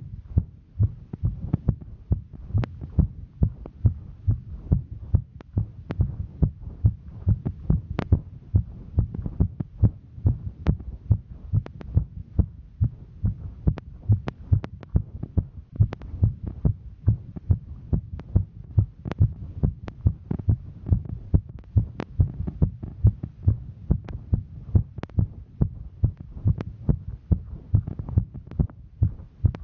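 A woman's heartbeat during a hike, beating in a quick, steady rhythm of dull thuds, with a few sharp clicks on some beats.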